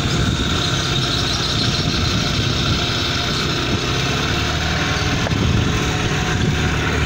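A small tour boat's motor running steadily as the boat moves slowly through the water.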